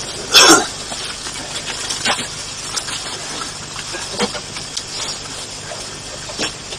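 Steady hiss with one loud, short burst about half a second in and faint clicks about every two seconds.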